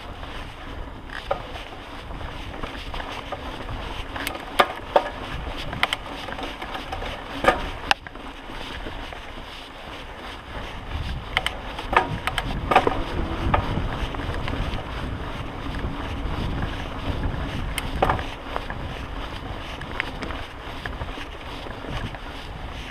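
Mountain bike riding down a dirt singletrack: a steady rumble of tyres on dirt and wind on the microphone, with sharp rattles and clanks from the bike jolting over bumps, bunched a few seconds in and again around the middle.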